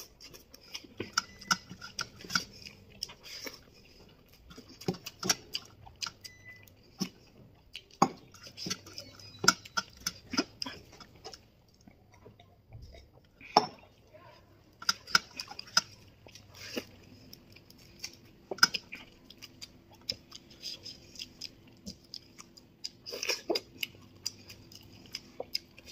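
A person chewing and smacking their lips while eating rice and boiled egg by hand, giving irregular wet mouth clicks and smacks.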